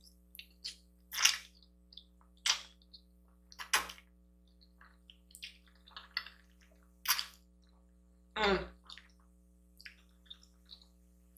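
Close-miked eating sounds of saucy pasta: about five short, wet slurps as strands of noodles are sucked into the mouth, with small smacking and chewing clicks between them.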